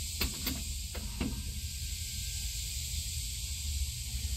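Electric fuel pump for a Holley Sniper fuel-injection system running with the ignition on: a steady hiss over a low hum. A few faint clicks in the first second and a half.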